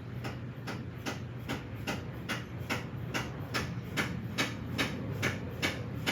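Slight, evenly paced taps, about two and a half a second, driving an anodized aluminium plug into the pressure-relief-valve bore of a 5.3 LS V8's oil pan to delete the valve.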